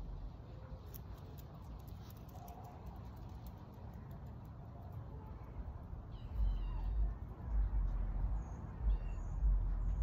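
Wind buffeting the microphone in irregular low rumbling gusts from about six seconds in, with small birds chirping briefly now and then.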